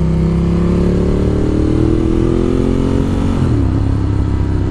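2016 Ducati Monster 1200 R's 1198 cc L-twin engine pulling in gear, its pitch rising steadily. About three and a half seconds in, the pitch drops sharply as the rider shifts up a gear, and the engine carries on at the lower pitch.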